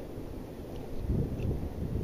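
Wind buffeting the microphone on a moving river raft: an uneven low rumble that grows louder about a second in.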